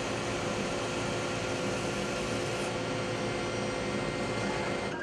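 Bat lathe running, cutting a spinning wooden billet down to a baseball bat's shape to the millimetre: a steady machine hiss with a faint hum under it.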